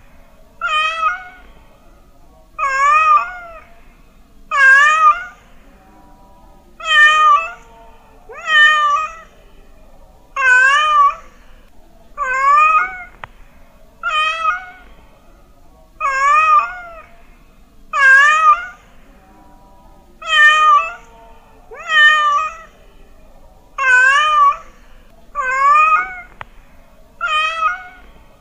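Domestic cat meowing over and over, about fifteen meows spaced roughly two seconds apart, each call wavering up and down in pitch.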